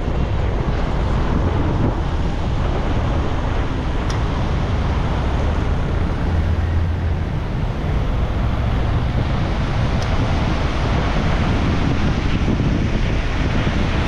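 Steady driving noise of a car on a highway: tyres on the road and wind rumbling on the microphone, with a heavy low rumble.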